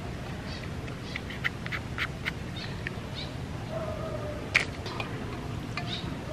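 Small clicks and taps from a matchbox and matches being handled over a glass bowl of water, with one sharper click about four and a half seconds in. An animal's held call sounds in the background just before that click.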